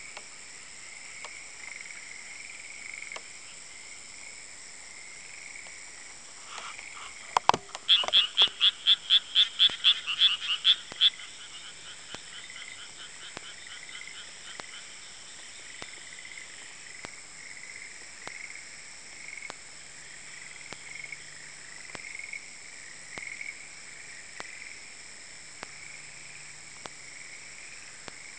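A chorus of frogs calling steadily in a high, pulsing trill. From about seven and a half seconds in, one frog close by gives a loud run of about a dozen quick croaks, roughly four a second, for about three seconds.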